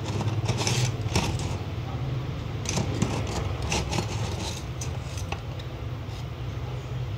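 Hand tools clattering as they are picked up, moved and set down on a wooden workbench: several separate sharp clicks and knocks over a steady low hum.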